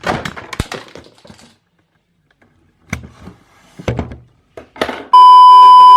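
Clattering and knocking as a camera is dropped and handled, then a few separate knocks. Near the end comes a very loud steady one-pitch beep lasting about a second, a censor bleep.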